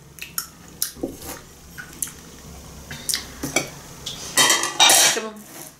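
Tableware being handled and stacked: a metal spoon clinking against a ceramic bowl, then plates and bowls knocking together in a louder clatter of dishes about four and a half seconds in.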